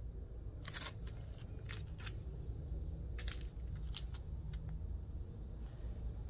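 Clear plastic comic-book bags crinkling as the bagged comics are handled and swapped. Short crackles come in two clusters, about a second in and about three seconds in, over a low steady background hum.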